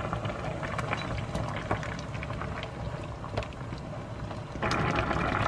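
Tteokbokki sauce with vegetables and rice cakes simmering in a wok, bubbling with many small pops, while a spatula stirs it. The bubbling grows clearly louder near the end.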